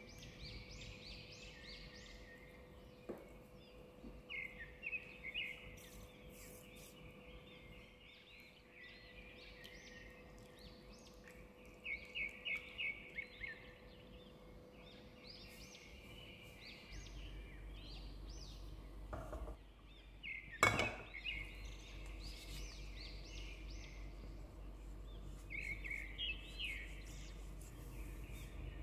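Small birds chirping in repeated short phrases, with a steady faint hum beneath and a single sharp knock about two-thirds of the way through.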